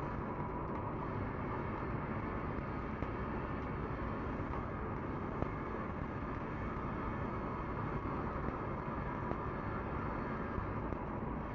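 Welding arc crackling and hissing steadily, with a few small sharp pops.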